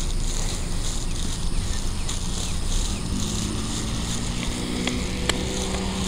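Outdoor ambience: insects chirring in a steady pulsing drone over a low rumble. About three seconds in, the steady hum of a vehicle engine joins, and a few sharp clicks come near the end.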